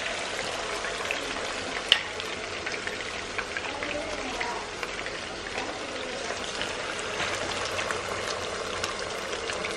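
Marinated chicken 65 pieces deep-frying in hot oil in an iron kadai: a steady sizzle with fine crackles. One sharp click about two seconds in.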